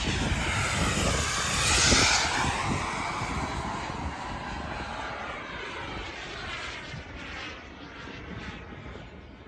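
Remote-control model jet fighter flying past: a rushing jet whine that swells to its loudest about two seconds in, then fades steadily as it flies away.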